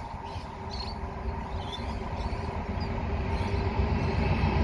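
NR class diesel-electric locomotives approaching at the head of a passenger train: a low engine rumble with a steady drone that grows louder. A few faint high chirps come in the first two seconds.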